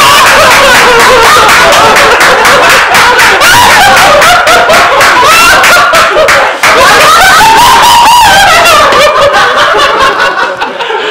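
A person laughing loudly and high-pitched, close to the microphone, with a short break for breath about six and a half seconds in.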